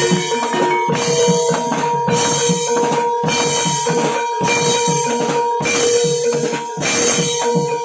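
Javanese gamelan music accompanying a barongan dance: a fast, driving drum pattern of about four to five strokes a second under a steady, held high tone.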